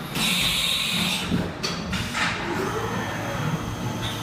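Haas CNC mill running with flood coolant spraying and splashing over an aluminium part in the vise, a steady machine noise with a hiss and a couple of short clunks.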